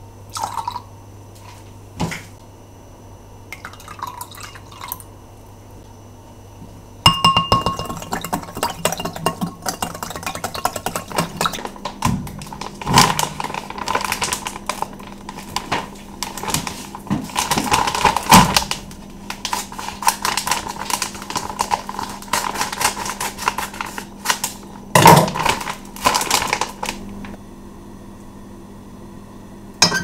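Kitchen food-prep handling: a few light clicks of a measuring spoon against a glass bowl as soy sauce is added, then about twenty seconds of dense rustling and clicking over a steady low hum.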